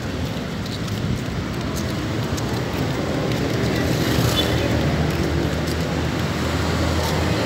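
Road traffic: motor vehicles running and passing on a city road, a steady wash of engine and tyre noise that grows louder toward the end as vehicles approach.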